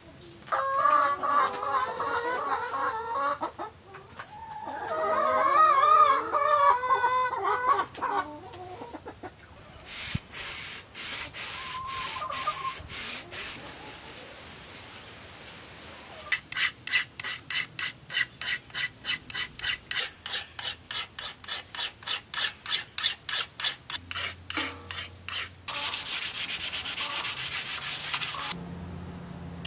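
Two long wavering calls in the first eight seconds, then a few sharp clicks, a run of rhythmic rubbing strokes at about four a second, and near the end a hand rubbing firmly along a sinew-backed bamboo bow for a few seconds.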